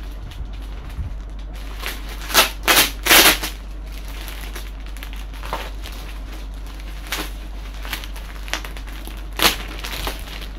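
Plastic bag and bubble wrap crinkling and rustling as they are pulled off a packed model-aircraft part. A quick run of three loud ripping sounds comes about two to three seconds in, and single sharp rips follow later.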